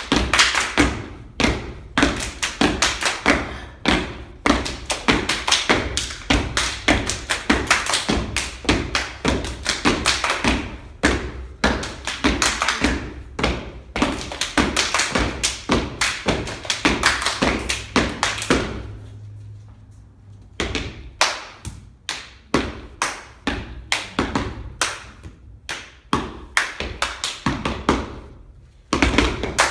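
Step-dance stomps on a wooden floor mixed with hand claps and body slaps from several dancers, in a fast percussive rhythm of about four strokes a second. The beat breaks off for about two seconds past the middle, then resumes.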